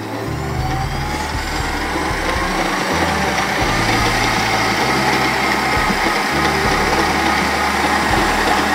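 Electric stand mixer running, beating cake batter with melted butter mixed in. Its motor whine climbs slowly in pitch and gets louder over the first few seconds, then runs steadily.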